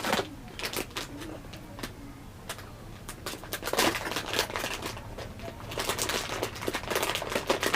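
Rustling and clicking of packaging and plastic parts being handled, in irregular bursts that grow busier after about three and a half seconds.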